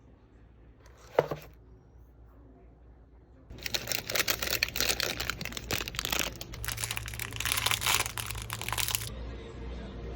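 A single sharp click about a second in, then about five seconds of dense crinkling and rustling that cuts off abruptly.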